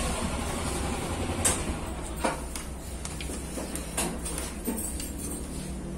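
Quiet background: a low steady hum with a few scattered light clicks.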